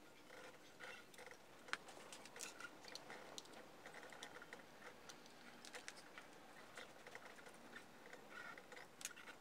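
Faint handling noise: scattered small clicks and taps as loudspeaker drivers, tweeters and a small plastic-cased module are picked up and turned over in the hands.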